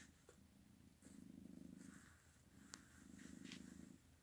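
Domestic cat purring faintly, in rhythmic phrases of about a second, one with each breath. A single small click comes a little before the end.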